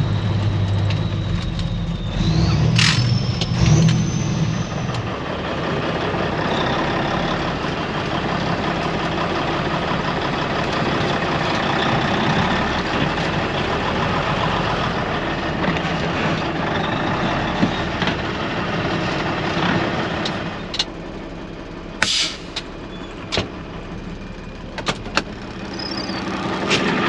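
Semi truck's diesel engine running as the truck pulls up. A high whine rises about two seconds in, with a sharp click. The engine noise drops about twenty seconds in, then several sharp clicks and knocks follow as the cab door is opened and the driver climbs out.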